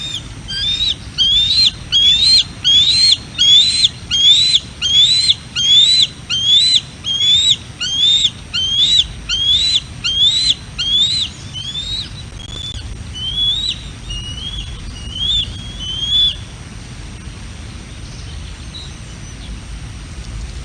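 Young bald eagle calling: a long series of high, thin, whistled notes, each rising then dropping, about two a second. The notes grow fainter after about twelve seconds and stop a few seconds before the end, over a low wind rumble.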